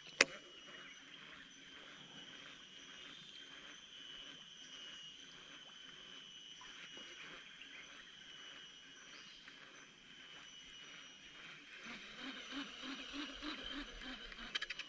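Faint, steady chorus of insects with a continuous high tone. There is a single sharp click just after the start, and near the end a short run of low pulses, about three a second.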